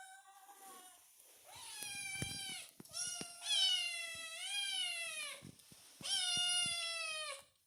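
Kitten meowing: a faint short cry, then three long, high meows, the middle one longest, each sliding down in pitch as it ends.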